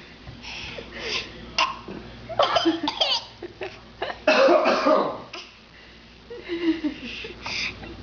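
A baby fake-coughing, copying an adult's cough: forced little coughs in several separate bursts, some with a pitched, voiced edge.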